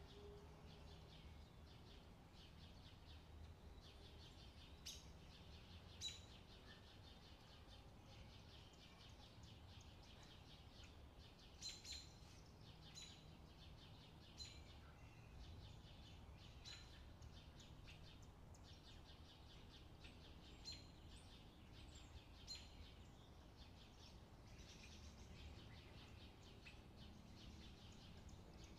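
Near silence: faint room tone with a dozen or so brief, faint, high-pitched chirps scattered through it.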